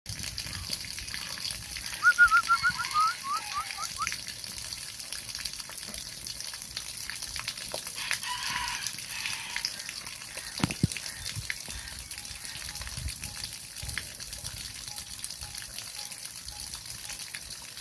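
A bird calling, a quick run of about eight short rising chirps around two seconds in, over a steady background hiss, with a single sharp click later on.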